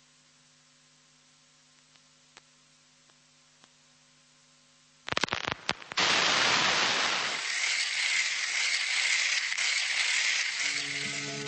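Faint steady hum, then a few sharp crackles about five seconds in, followed by a loud steady hiss.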